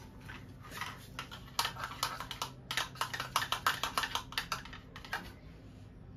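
A spoon clicking and rattling against cereal in a plastic bowl as it is stirred and scooped: a quick run of light clicks, several a second, that stops shortly before the end.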